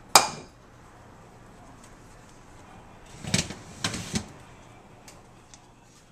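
Metal clanks and knocks of an oven rack and a foil pan of ribs being handled with an oven mitt. There is one sharp clank just after the start that rings briefly, then three knocks about three to four seconds in.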